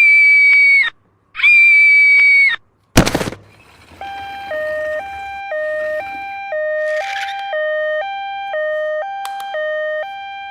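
Toy ambulance's electronic two-tone siren, switching between a high and a low note about every half second, starting about four seconds in. Before it come two long, loud electronic beeps and a sharp click.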